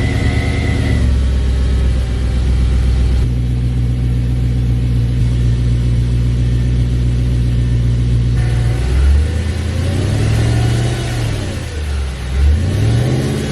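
Car engine idling on a cold start in freezing weather, with a high steady whine that stops about a second in. Near the end the engine is revved twice, its pitch rising and falling each time.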